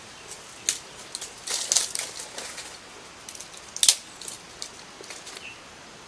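Dry twigs and leaf litter crackling and snapping as sticks are gathered up by hand. A cluster of cracks comes about a second and a half in, and the loudest single sharp crack comes near four seconds.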